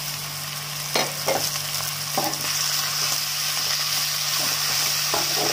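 A spatula scrapes and knocks against a metal kadai several times while stirring flaked shark fish and onions frying in oil, over a steady sizzle.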